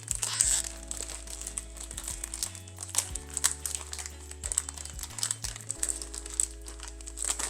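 Plastic snack packaging crinkling as it is handled, over background music with held low notes.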